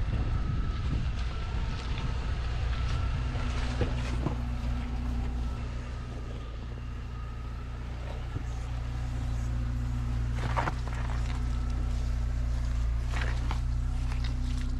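A vehicle engine running steadily at idle, a constant low hum with a few clicks and knocks over it.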